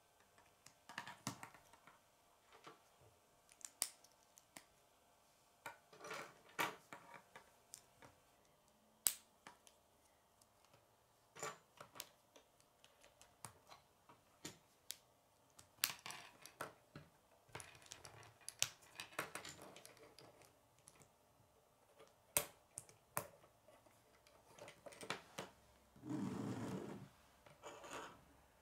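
Plastic K'nex rods and connectors clicking and snapping together as pieces are assembled by hand, in irregular sharp clicks. A longer rubbing noise comes near the end.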